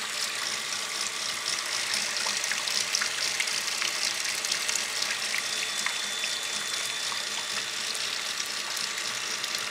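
Water spraying off a fast-running motorcycle chain and splashing back into a plastic bucket of soapy water, a steady hiss of spray.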